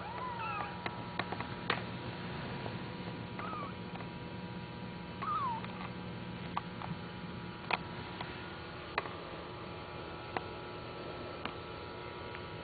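Bengal kittens mewing: a handful of short, high mews that rise and fall in pitch, mostly in the first half, among scattered sharp clicks, over a steady faint hum.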